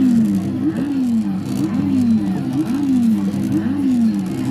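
Blue Lightning McQueen coin-operated kiddie car ride running, its speaker playing a looped car-engine sound effect: a falling whine that repeats about once a second over a steady hum.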